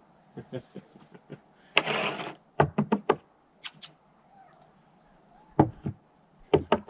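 Wooden boards knocking and clattering as they are handled and sorted, with a short scraping rush about two seconds in and several sharp knocks after it and again near the end.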